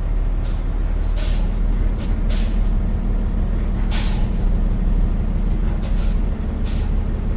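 Vehicle engine running at low speed with a steady low drone, creeping along, with a few short hissing bursts over it.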